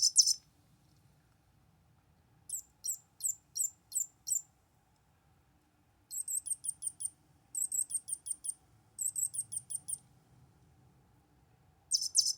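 Electronic chirping from a McDonald's 2001 Robo-Chi Chirpy-Chi toy bird, set off by its food piece's magnet pushing the inner magnet onto the contact board. A burst of chirps ends just after the start, five separate high chirps follow a couple of seconds later, then three quick trilling runs of about a second each, and another burst begins near the end.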